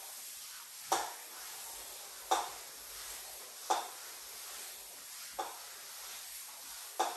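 Plastic glider discs sliding under the feet across the floor during plank knee tucks: five short scrapes, one about every one and a half seconds, over a steady faint hiss.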